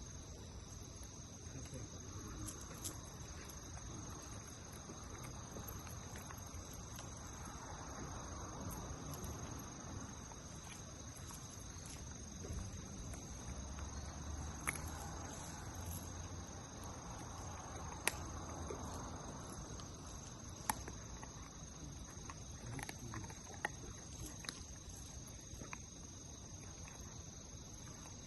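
Crickets and other insects calling in a steady, high-pitched chorus, with a few sharp clicks scattered through the second half.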